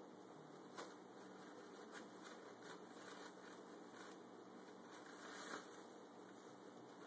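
Faint, scattered crinkles and rustles of a thin plastic bag as a cat shifts and burrows about inside it; the loudest comes about five and a half seconds in.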